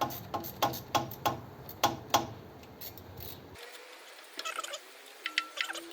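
Ratchet spanner clicking in an even run of about three clicks a second while the starter motor is fitted. After a cut about three and a half seconds in come fainter metallic scrapes and squeaks.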